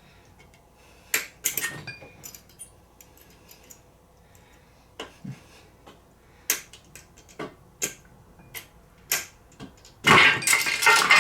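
Metal picks clicking and scraping against a chewed-up lower bearing in an M5OD-R2 transmission case as it is pried out, in scattered sharp ticks and knocks. About ten seconds in, a burst of loud metallic clattering as the bearing works loose.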